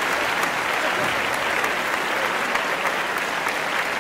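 Audience applauding, a dense, steady clapping that neither builds nor fades.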